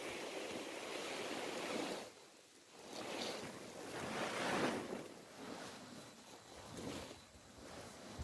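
A large tarpaulin dragged and swept across grass, a rushing rustle that comes in several pulls with a short lull about two seconds in.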